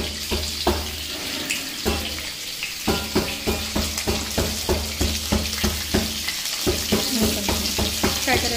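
Stuffed bitter gourd pieces frying in hot oil in a kadhai: a steady sizzle with frequent sharp crackles and pops, a few each second. The pops come thicker from about three seconds in, as more pieces go into the oil.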